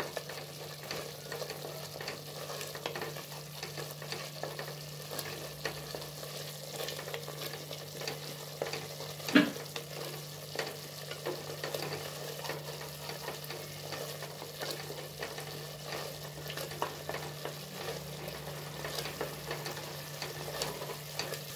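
Tomato masala sizzling in oil in a pressure cooker while a wooden spatula stirs and scrapes it; it is being sautéed until its raw smell is gone. A steady low hum runs underneath, and there is one louder knock about nine seconds in.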